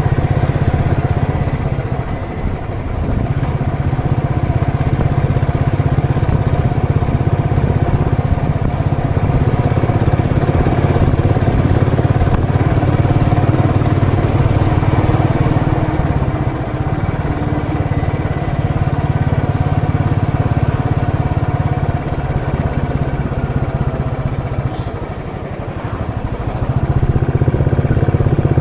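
Royal Enfield Electra's single-cylinder engine running while riding, easing off briefly about two seconds in and again near the end before pulling steadily once more.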